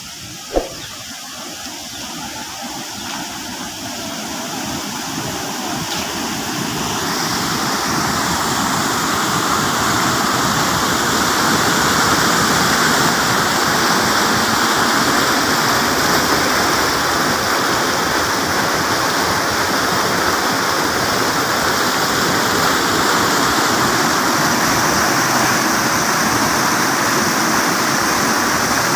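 Rushing water of a fast-flowing river churning white over rocks. It grows louder over the first several seconds, then runs steady. There is a short thump about half a second in.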